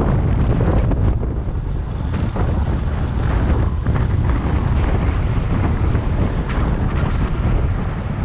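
Wind rushing over the microphone of a camera on a road bike descending at speed: a loud, steady low rumble that swells and eases a little.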